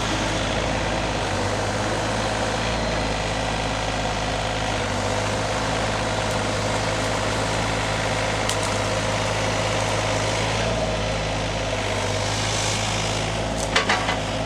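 Mini excavator engine running steadily at a constant speed, with a few short knocks near the end.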